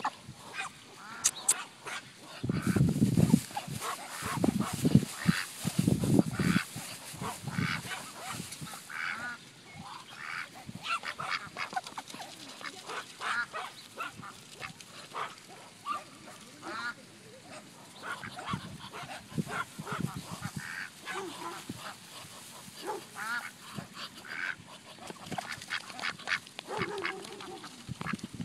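American Pekin ducks quacking in many short calls, close by, as they eat corn from a hand. Loud low rumbles come about three to six seconds in.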